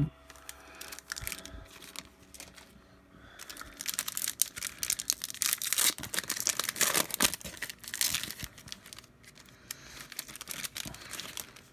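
Plastic packaging crinkling and rustling as it is handled. It is quiet at first, then dense irregular crackling runs from a few seconds in until near the end.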